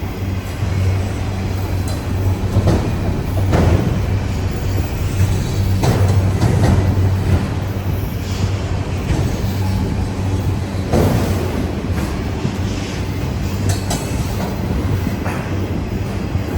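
Freight train of auto rack cars rolling past close by: a steady rumble of wheels on rail with irregular knocks and clanks from the cars.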